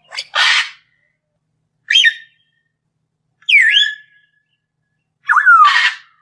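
Lovebird calling: four separate high-pitched calls, one every 1.5 to 2 seconds, mixing harsh squawks with short whistled notes that slide down and up in pitch.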